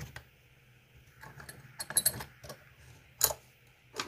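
Scattered metallic clicks and clinks as a pin-tumbler puzzle lock and lockpicking tools are handled and turned round, with a small cluster about halfway and one louder click near the end.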